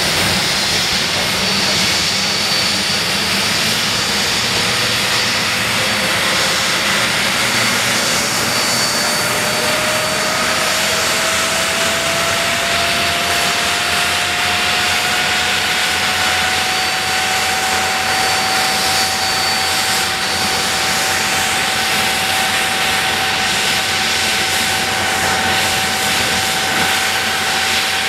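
Handley Page Victor K.2's Rolls-Royce Conway turbofan engines running on the ground during start-up, a steady jet roar with a whine that rises slowly in pitch for about ten seconds and then holds steady as an engine winds up to idle.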